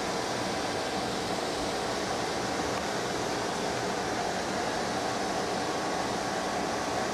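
Steady rushing noise with a faint hum, unchanging, with no distinct events.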